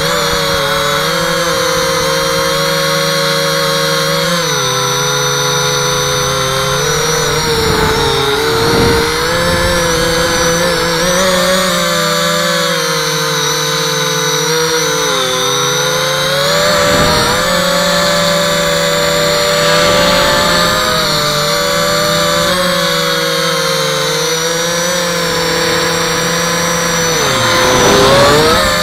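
Brushless motors and propellers of a 250-size FPV quadcopter, heard from a camera mounted on its frame: a steady buzzing whine whose pitch rises and falls with the throttle, dipping and then climbing sharply near the end.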